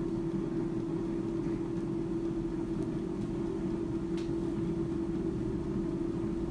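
Klarstein AeroVital 5.4-litre air fryer running just after being started to cook at 200 °C, its fan giving a steady hum with one clear tone.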